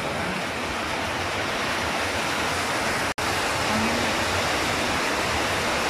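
Steady rushing hiss of an electric fan running close to the microphone, its air noise even throughout, with a brief dropout about three seconds in.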